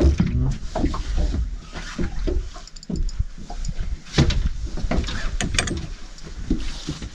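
Knocks, clicks and rattles of a landing net and fishing gear handled against a boat's rail and deck as a fish is netted, with a sharp knock about four seconds in.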